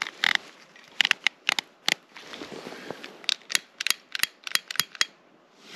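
A pocket lighter being flicked over and over: sharp, scratchy clicks of the flint wheel in two quick runs, struggling to catch and hold a flame.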